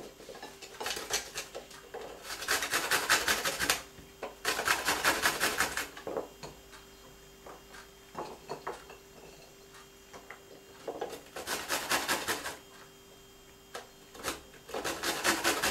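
Garlic being grated on a kitchen grater: four runs of quick, even rasping strokes, each lasting a second or two, with pauses between.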